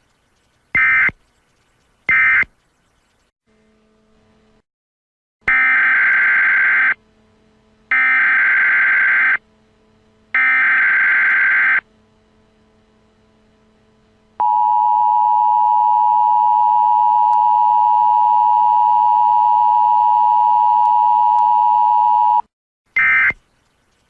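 Emergency Alert System tones: two short buzzy digital data bursts, then three longer SAME header bursts of about a second and a half each, followed by the steady two-tone attention signal for about eight seconds. Another short data burst starts near the end.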